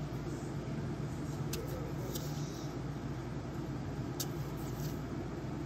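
Steady low background hum, with a few faint clicks as stiff cardboard game cards are handled and swapped in the hand.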